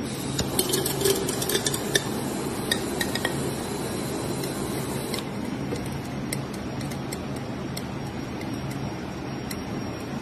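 Butane jet torch lighter burning with a steady hiss against an aluminium soda can, with a scatter of small clicks and crackles in the first few seconds.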